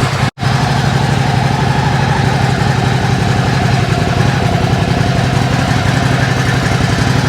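Ducati Hypermotard 950 SP's L-twin engine idling steadily through its stock OEM exhaust, just after being started.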